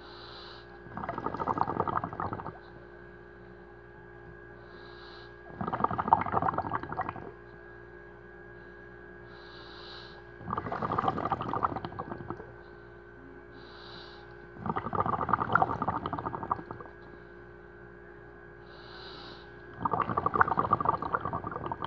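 Simulated underwater diver breathing: five bubbling exhalations about every five seconds, each lasting about a second and a half, each preceded by a short faint hiss of inhalation, over a steady hum.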